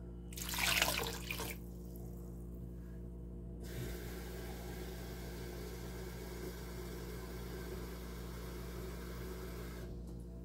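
Water pouring from a pitcher into a slow cooker, splashing into the broth around a chuck roast to cover it. There is a brief louder splash just after the start, a short pause, then a steady pour from about four seconds in until near the end.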